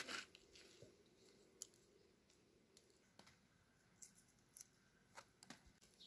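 A walnut shell cracks sharply at the very start. Then it is near quiet, with a few faint, scattered clicks.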